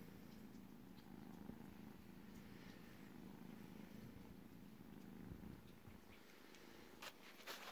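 Domestic cat purring steadily and faintly, a low rumble that stops about six seconds in, followed by a few faint clicks near the end.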